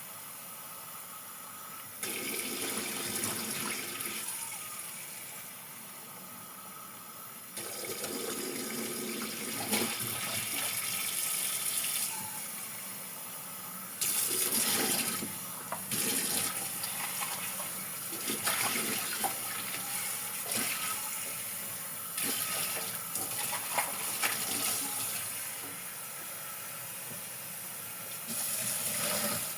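Water running from a tap into a sink while dishes are washed by hand, the flow stepping up and down abruptly every few seconds, with light clinks and knocks of dishes in the middle stretch.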